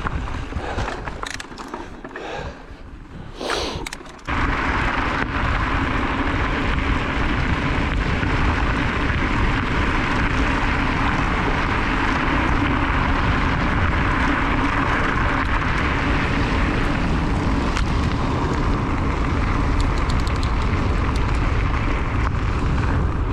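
Wind rushing over the camera microphone on a fast mountain-bike descent, a loud steady rumble that sets in abruptly about four seconds in. Before that it is quieter, with scattered clicks and knocks from the bike on the trail.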